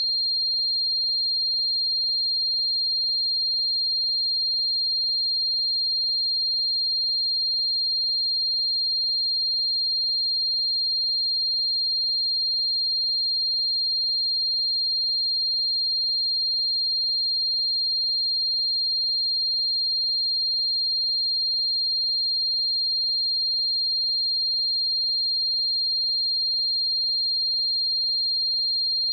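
A continuous 4206 Hz sine-wave test tone: one steady high-pitched pure tone at constant loudness.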